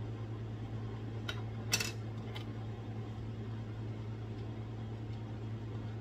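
Three short clinks of a spoon against a cooking pot, the loudest a little under two seconds in, over a steady low hum.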